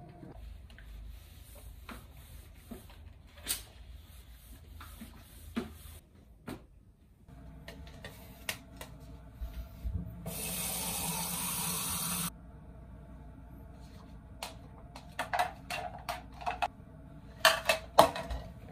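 Handling sounds at a kitchen counter while a protein shake is made: scattered light clicks and knocks, a steady rush of running water for about two seconds midway, then a cluster of louder, sharp clicks and knocks near the end.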